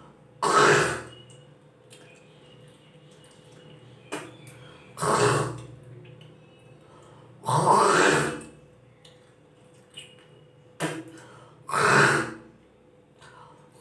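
A woman hawking and gagging from the throat in imitation of vomiting: four loud, harsh bursts a few seconds apart, with a few short clicks between them.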